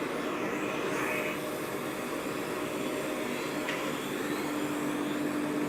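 Automatic-feed CNC wood lathe running: a steady whirring machine noise, joined by a steady hum about four seconds in.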